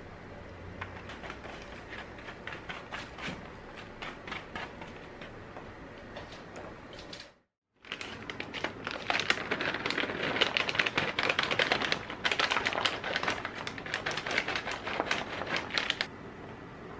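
A wooden spoon stirs and scoops crunchy baked granola on a paper-lined tray, with light scattered crackles. After a brief cut, a plastic bag of dried cranberries crinkles loudly in a dense crackle as it is opened and shaken out over the granola, stopping suddenly about a second before the end.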